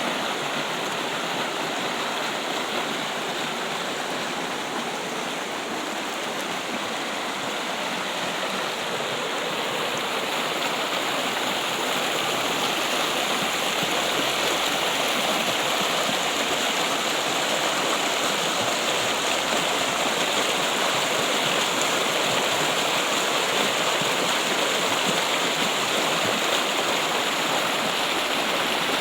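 Water running steadily over stones, a continuous trickling and splashing.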